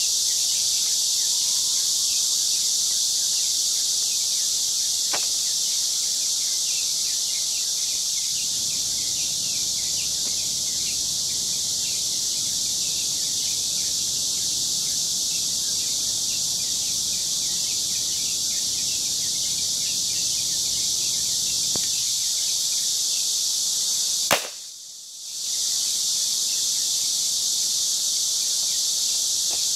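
A single sharp revolver shot about 24 seconds in, over a steady high-pitched drone of insects; the background drops out for about a second just after the shot.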